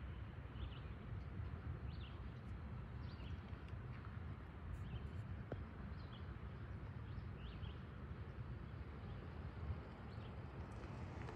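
Freight train of tank cars and covered hoppers rolling slowly past on the far track: a steady low rumble, with short high chirps scattered throughout.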